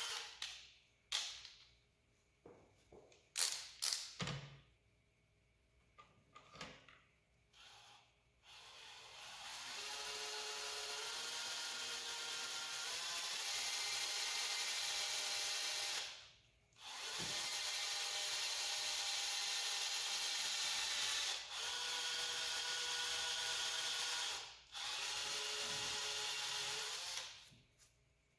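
Cordless drill boring small pilot holes into a composite rifle stock. A few short bursts of the motor come first, then four long runs of steady drilling with brief pauses between them. The motor's whine rises in pitch early in the first long run.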